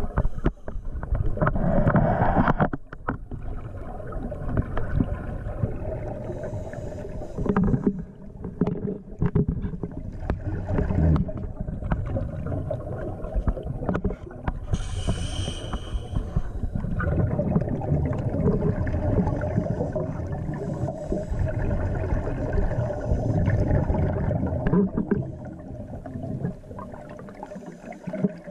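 Underwater sound picked up by a GoPro camera in its waterproof housing: a steady muffled low rumble with repeated surges of bubbling from scuba divers' regulator exhalations, and a brief hiss about halfway through.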